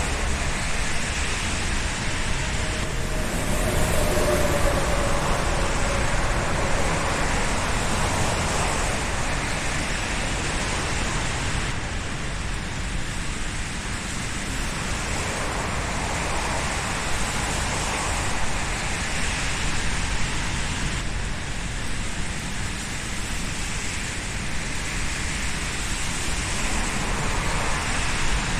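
Road traffic noise: a steady wash of cars and tyres going by, swelling and easing as vehicles pass.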